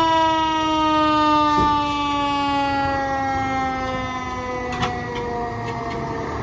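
Siren of a Spartan Metro Star fire engine sounding as it pulls out: a single pitched tone, stepped up just before, that slowly falls in pitch and fades over about five seconds. A short sharp knock comes about five seconds in.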